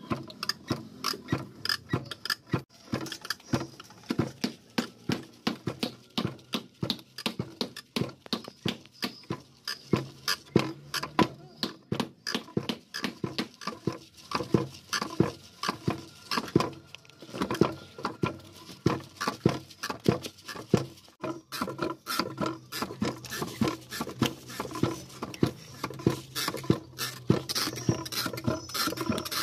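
Wooden pestle pounding soaked rice into flour in a mortar pit in a concrete floor: regular thuds at about two a second.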